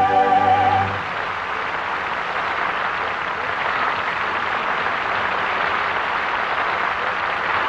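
A held final sung note with vibrato ends about a second in, then a studio audience applauds steadily.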